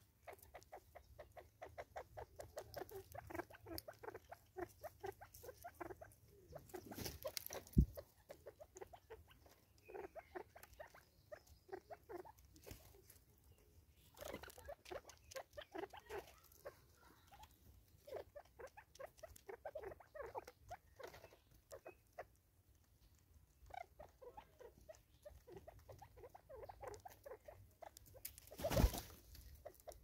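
Spurfowl beaks pecking seed off a wooden tree stump: faint, rapid clusters of small taps and ticks. Two louder rustling bursts come about a quarter of the way in and near the end.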